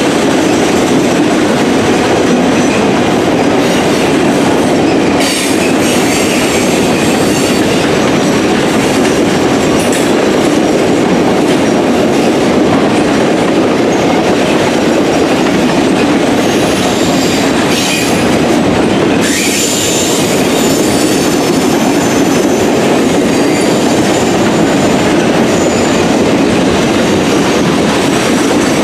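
Norfolk Southern RoadRailer freight train rolling steadily past on the rails, with a continuous rumble of wheels on track and clickety-clack. Thin high-pitched wheel squeal comes and goes, strongest in the second half.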